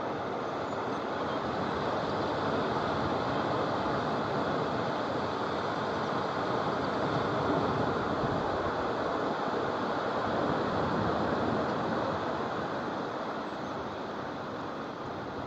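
Steady wash of small surf breaking on a sandy beach, swelling a little about halfway through.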